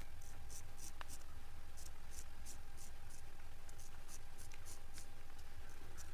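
Straight razor scraping hair and stubble off a man's scalp in short, rasping strokes, about three a second.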